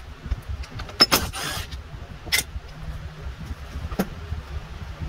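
A socket wrench rattles and clicks against metal while the battery tray's 10 mm bolts are undone: a rattling burst about a second in, then single sharp clicks.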